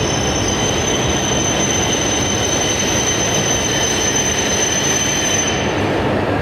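Shinkansen bullet train moving alongside an underground station platform: a steady loud rumble of wheels and running gear, with a high thin whine that stops about five and a half seconds in.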